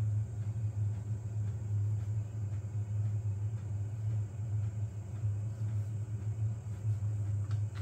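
Steady low hum from a powered-on Elegoo Neptune 4 Pro 3D printer standing idle, with a few faint light ticks near the end.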